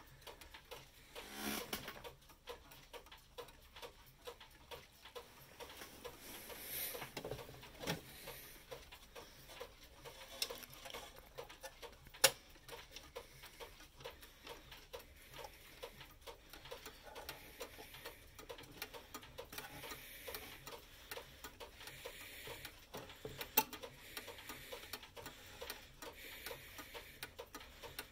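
Sessions brass mechanical clock movement ticking faintly and evenly, with a couple of louder clicks along the way.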